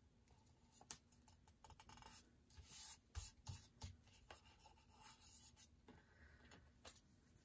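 Faint rustling, crinkling and rubbing of paper under the fingers as a small sticker is peeled and pressed down onto a paper tag, with a few small taps and clicks scattered through.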